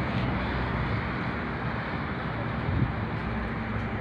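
Steady outdoor noise: wind rushing over a phone's microphone, with a constant low rumble.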